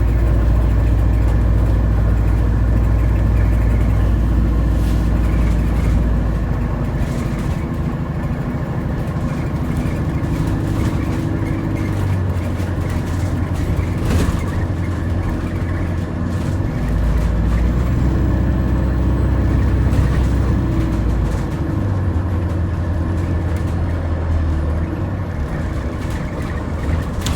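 Alexander Dennis Enviro400H City hybrid double-decker bus heard from inside while under way: a strong, steady low hum that fades about six seconds in, comes back twice, and has steadier, higher running tones over it that shift in pitch. The bus's running sound is one its rider calls weird.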